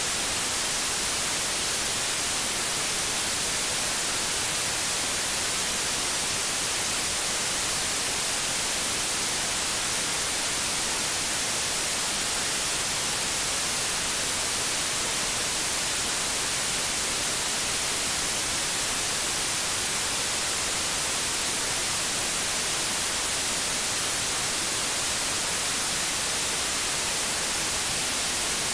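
Steady white noise: an even, unchanging hiss, brightest in the treble, with no tones or breaks.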